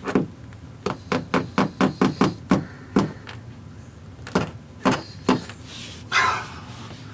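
Small hammer tapping in cable clips along a wall: a quick run of about ten sharp knocks, then three more spaced out, and a short scrape or rustle near the end.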